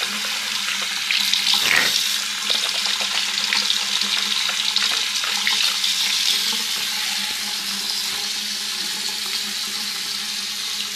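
Tap running steadily into a sink, an even rush of water.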